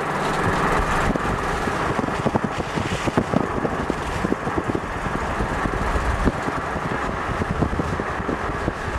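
A Subaru heard from inside the cabin while it drives, with a steady engine and road rumble and frequent short knocks and rattles from the car body.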